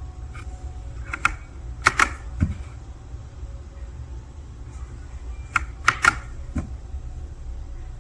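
Two short clusters of sharp clicks and knocks, about four seconds apart, over a steady low rumble.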